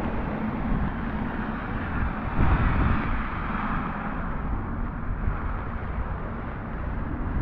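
Rainy city street ambience: a steady hiss of rain and wet-road traffic over a low rumble, the hiss swelling for a moment about three seconds in.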